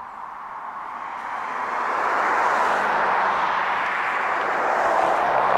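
A passing vehicle: a steady rushing noise that swells over the first two seconds or so and then holds, with a faint low engine hum underneath.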